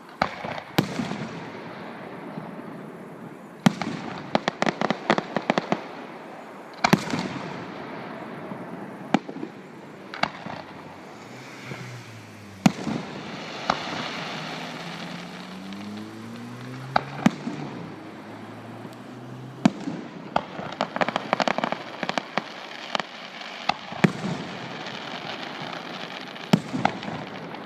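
Fireworks display: loud, sharp shell bursts every few seconds, some followed by rapid runs of crackling.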